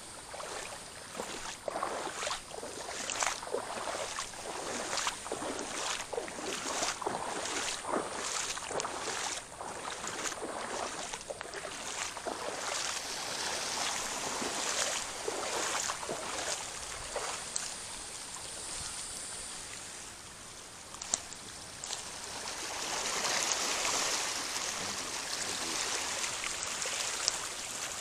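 Feet wading through shallow sea water over a reef flat, a splash with each step in an uneven rhythm, giving way to a steadier swishing wash near the end.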